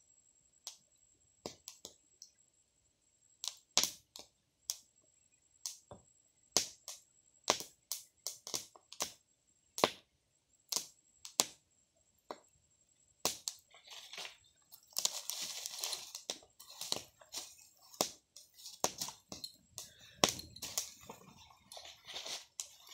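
Open wood fire crackling and popping under corn roasting in the husk. There are sharp irregular pops, sparse at first, then crowding into a denser, continuous crackle from about halfway.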